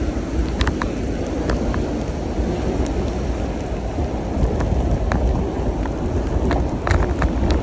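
Wind noise on the microphone of a handlebar-mounted phone while cycling over wet paving, with tyre noise and scattered sharp clicks.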